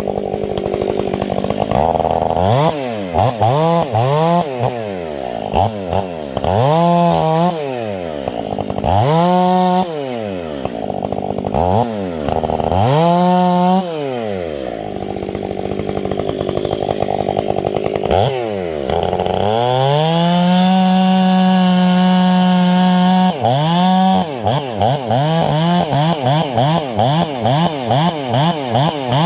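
Stihl 500i fuel-injected two-stroke chainsaw with an 8-pin sprocket, revving up and down again and again. About twenty seconds in it is held at high revs for roughly four seconds, then it is blipped quickly several times a second near the end.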